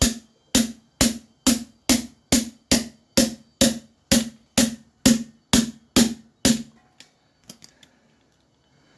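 Hammer blows tapping out the spring pin that holds a Rapid 14 stapler's handle: about fifteen sharp metallic knocks, roughly two a second, then a few light taps near the end as the pin nears coming free.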